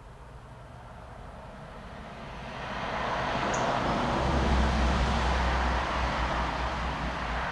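Noise of a vehicle going by, a rumble with a rushing hiss that builds over about two to three seconds and then holds loud.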